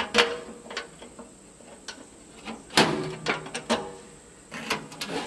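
Scattered metal clinks and clanks as a handle is bolted onto the steel ash drawer of a Char-Griller Smokin' Champ smoker's firebox with hex nuts. The loudest clank comes a little before three seconds in, followed by a quick cluster of lighter clicks.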